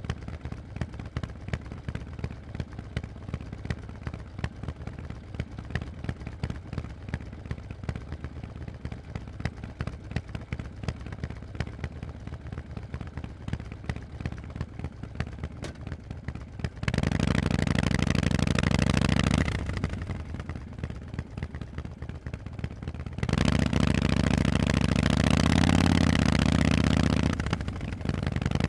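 Harley-Davidson Forty-Eight's air-cooled V-twin through Vance & Hines exhausts, running at low throttle with a rapid pulsing beat. It is then opened up loudly twice, once for a couple of seconds and again for about four.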